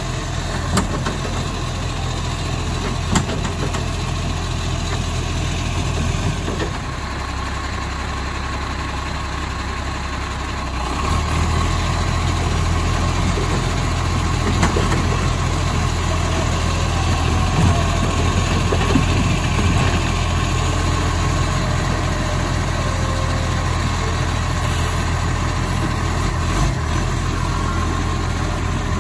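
Acco side-loader garbage truck's diesel engine running steadily, rising in level about a third of the way in as its hydraulic lifting arm raises and empties a wheelie bin. Two sharp knocks come near the start.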